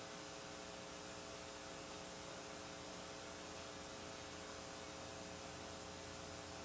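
Steady electrical hum over a hiss, with several constant tones and no other events: the room tone of the recording during a silent pause.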